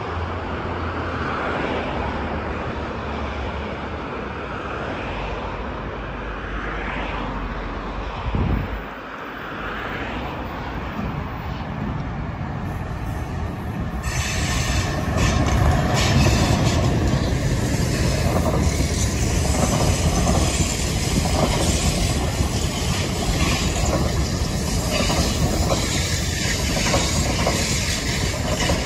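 NJ Transit Multilevel double-deck passenger train coming around a curve and passing close by, its wheels rumbling and clicking over the rails with wheel squeal. The noise builds at first and turns much louder and brighter about halfway through, as the train reaches the microphone.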